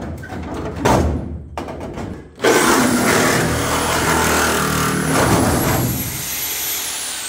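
Reciprocating saw (Sawzall) cutting the sheet-metal side of a pickup bed. Two short bursts of cutting come first, then a longer cut starts about two and a half seconds in. The saw motor's high whine climbs as it starts and glides down as the saw winds off near the end.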